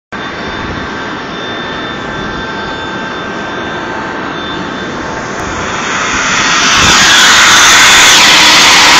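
Boeing 757 turbofan engine running on the ground for a leak check after chip detector work, a steady jet roar with a thin high whine. It grows much louder about six to seven seconds in.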